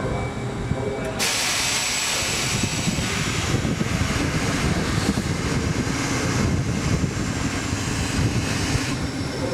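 A steady hiss, like air venting, starts suddenly about a second in and cuts off near the end, over the low rumble of a railcar standing by.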